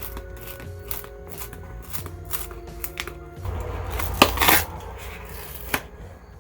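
Crisp taps, clicks and scratches from a sneaker being handled close to the microphone, over soft background music; a louder rustle about four seconds in.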